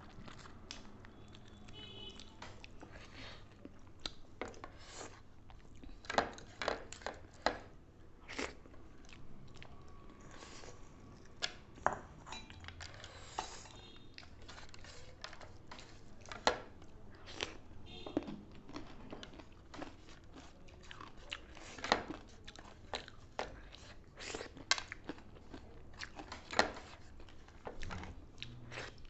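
Close-miked eating sounds: chewing and crunching through a meal of fried chicken and rice, with many sharp clicks at irregular intervals.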